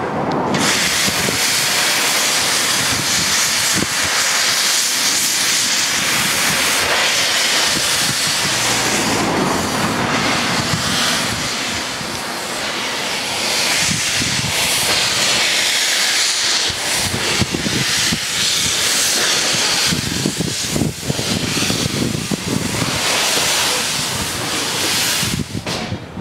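Narrow-gauge steam locomotive pulling a train away, a loud steady hiss of escaping steam throughout. Irregular knocks and clicks from the wheels and train come in under the hiss, more of them in the second half as the carriages pass.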